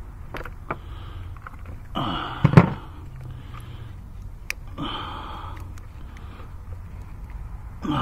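Gloved hands handling ignition coils and plastic engine-bay parts: scattered small clicks and knocks, with one louder thump about two and a half seconds in. Two short breaths from the worker come about two and five seconds in, over a steady low rumble.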